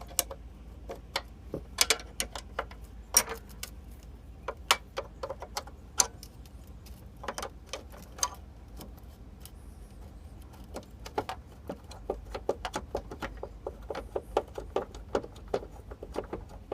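Ratcheting wrench clicking as a 13 mm door-hinge bolt is turned loose. The clicks come scattered at first, then in a quicker, steadier run in the second half.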